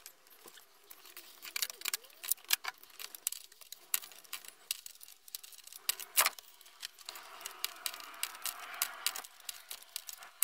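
Ratchet socket wrench on an extension bar working a bolt loose, giving irregular sharp metallic clicks and clinks, with a few louder knocks of metal on metal.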